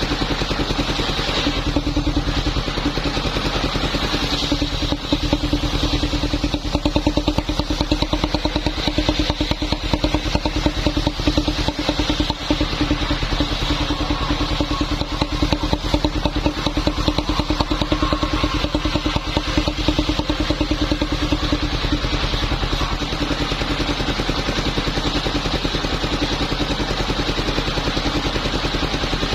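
Engine of a mobile wood-sawing machine running steadily at constant speed, with a dense even firing pulse and a steady hum.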